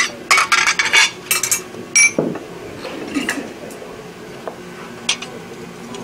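Steel blacksmithing tools and tongs clinking and clattering against the anvil and each other as they are handled and set down, a quick run of clinks in the first second and a half, then one short ringing clink about two seconds in and a few lighter taps.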